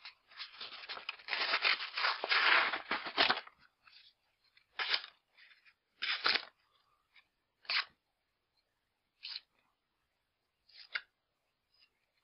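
A sheet of paper crinkling and tearing as a freshly sharpened axe edge is pushed and drawn through it: about three seconds of continuous rustling and crinkling, then five short crisp rustles spaced about a second and a half apart. The paper tears rather than slicing cleanly because the axe's thick convex grind does not cut paper properly.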